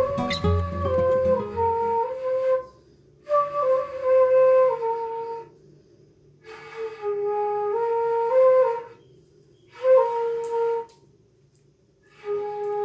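A flute plays a slow melody in short phrases, with pauses of about a second between them. Acoustic guitar strumming underneath stops about two seconds in.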